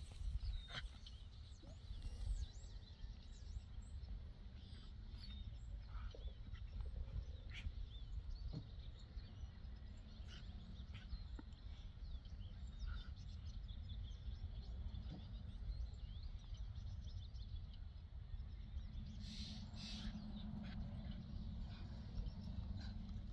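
Outdoor ambience: scattered faint bird chirps over a steady low rumble, with a few soft clicks and scuffs.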